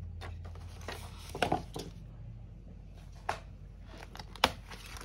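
A cash-envelope budget binder being handled: a few soft rustles and light clicks, with one sharp click about four and a half seconds in, over a low steady hum.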